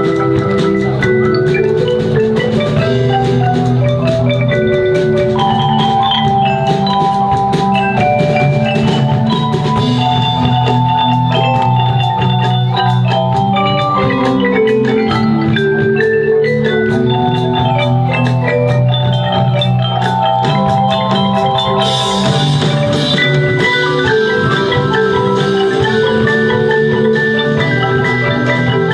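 Percussion ensemble playing a piece on marimbas and other mallet percussion, quick melodic note runs over a steady low drum pulse. A bright shimmering crash comes about three-quarters of the way through.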